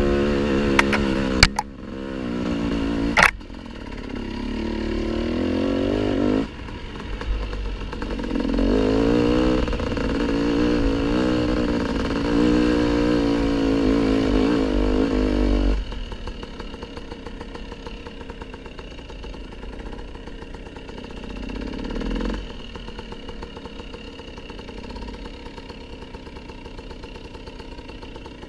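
Dirt bike engine running as it rides a rough forest trail, its note rising and falling with the throttle, with a few sharp knocks in the first few seconds. About sixteen seconds in it drops suddenly to a quieter, lower running sound, as if rolling off the throttle, swelling briefly once more later.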